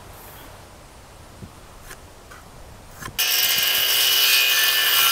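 Cordless circular saw starts about three seconds in and runs with a loud, steady, high whine as it cuts an angle across a wooden board. Before it, a few light taps.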